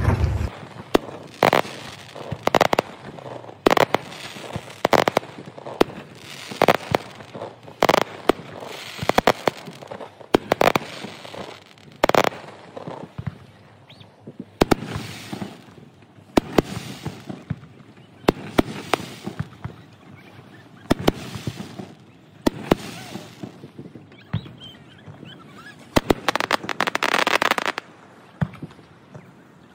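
Fireworks display: aerial shells going off in sharp bangs about once a second, some followed by crackling, with a dense stretch of crackle near the end.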